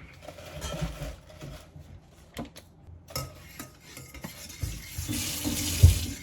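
Cooking utensils clinking and scraping against a pan or bowl while food is stirred and handled, with a few sharp knocks and a louder stretch of clattering near the end.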